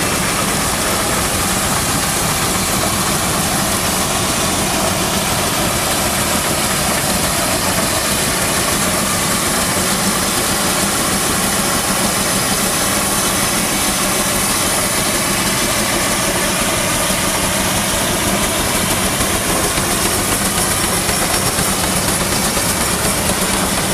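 J.I. Case steam traction engine running as it drives along, a steady loud mechanical noise with a low hum.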